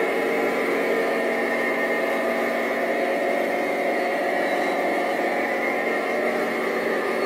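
Radio-controlled scale model Cat 993K wheel loader running with a steady mechanical whir that holds an even level throughout.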